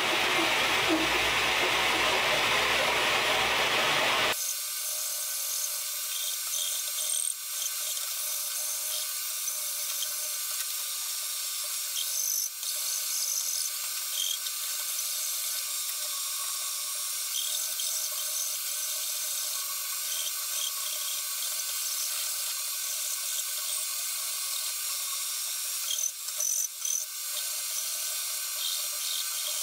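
Steady, loud noise from a dust extractor or shop vacuum, cut off abruptly about four seconds in. After that, a thinner steady hiss with faint scraping of a flat hand file on the wooden post, and a couple of light knocks.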